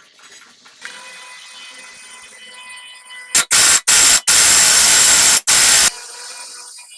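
Very loud hissing rush in several bursts, the longest over a second, starting about three seconds in, over a fainter steady whine.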